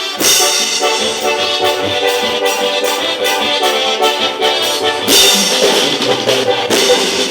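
Band music led by an accordion, with maracas and percussion keeping a steady beat.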